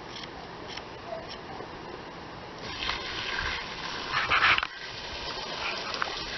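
A few faint snips of thinning shears cutting a dog's coat. A louder rush of breathy noise comes about three seconds in and cuts off just before five seconds.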